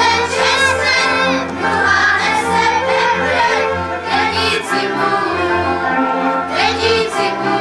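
A group of children singing a folk song together, with instrumental accompaniment underneath.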